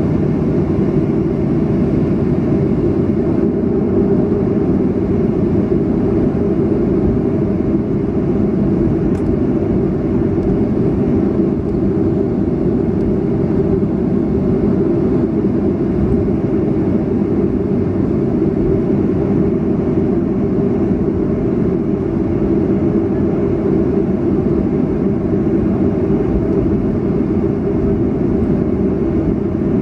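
Steady cabin noise of a Boeing 737-500 taxiing on the ground, its CFM56-3 engines running with an even, mostly low rumble.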